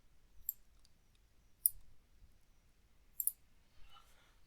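Computer mouse clicking: three short, separate clicks.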